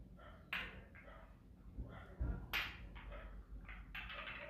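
Faint handling noise as two perfume boxes are held and shifted in the hands: a few soft knocks and some light rubbing.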